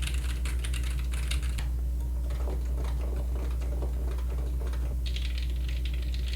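Typing on low-profile mechanical keyboards in turn for a sound comparison. Fast, bright keystroke clatter gives way at about two seconds to a softer, duller run of keystrokes, and turns bright again about five seconds in, over a steady low hum.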